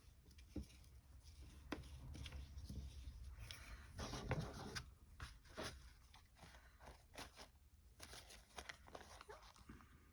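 Faint rustling and light taps of paper being handled while glue is spread on it, with a denser patch of rustling about four seconds in.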